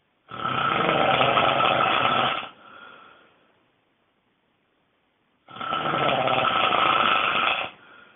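A person snoring very loudly: two long snores about five seconds apart, each lasting about two seconds and trailing off into a fainter, shorter sound.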